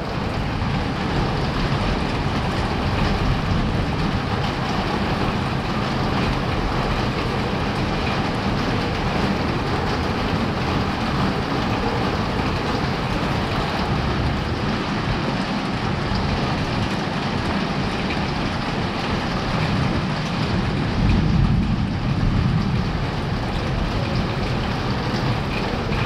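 Rain pouring down and running off a shelter roof, a steady hiss with a low rumble underneath that swells for a couple of seconds near the end.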